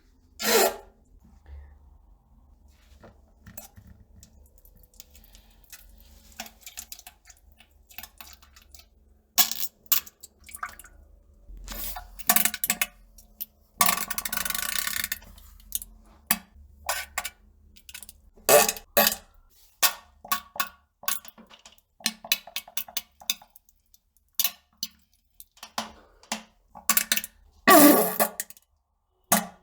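Toilet sounds: a run of short farts and plops into toilet water. The longer bursts come just after the start, around the middle and near the end.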